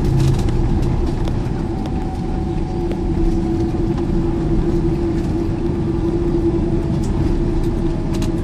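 Steady cabin noise inside a Boeing 747-400 taxiing after landing: the jet engines running at idle under a steady hum.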